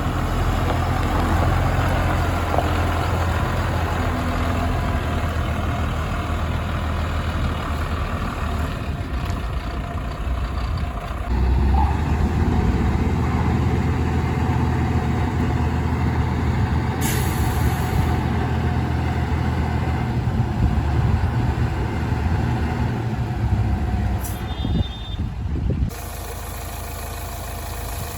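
Diesel engine of a JCB 3DX backhoe loader working under load as it loads sand, revving up harder about a third of the way in. A short air hiss comes twice, mid-way and near the end. The engine note drops to a lower, quieter run near the end.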